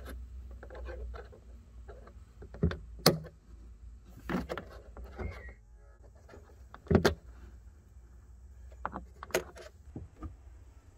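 Sharp plastic clicks and knocks at irregular spacing from hands unlocking and unplugging the subwoofer's wiring connector in the boot of an Audi A5 Sportback, over a low steady hum.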